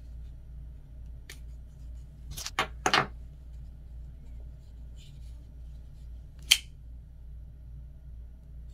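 Sharp metallic clicks from a Ganzo G734-BK folding pocket knife being handled: a light click, then a quick run of three or four louder clicks, and a single sharp snap near the middle.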